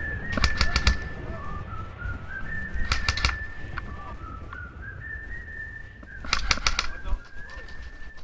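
Three short bursts of rapid airsoft gunfire, a quick run of several shots each, about a second in, about three seconds in and past six seconds in. Under them runs a thin whistle-like tone that steps up and down in pitch.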